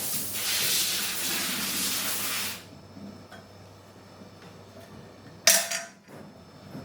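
Loud steady hissing spray that cuts off abruptly about two and a half seconds in, followed by a second short spray burst about five and a half seconds in.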